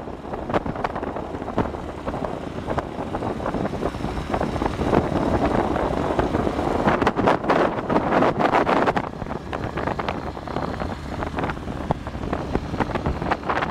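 Wind buffeting the microphone over the steady low rumble of a small sailboat's outboard motor pushing it through the water, with gusts swelling and easing throughout.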